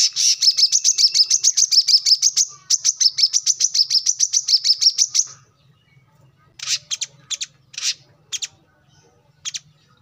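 Male brown-throated sunbird singing. A fast run of sharp, high chips, about eight a second, lasts about five seconds, and after a short pause come several separate chirps.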